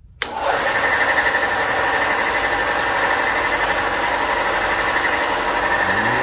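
A 4 x 36 inch bench belt sander running loudly and steadily: an even grinding rush with a steady high whine, as a block of scrap aluminium is pressed against the moving belt.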